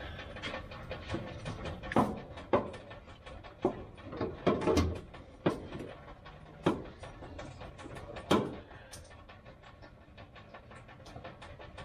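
Gasoline dripping and splattering onto the shop floor from the van's disconnected fuel tank lines, heard as an irregular patter of small ticks. Several louder knocks come in the first eight seconds or so.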